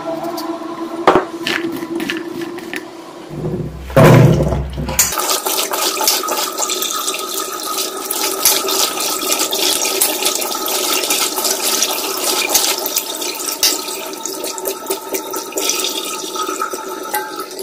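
A few clicks of a knife slicing tomato against a steel bowl, then a loud low rush about four seconds in. After that, tap water splashes steadily onto chopped vegetables in a perforated steel colander in a sink as they are rinsed by hand.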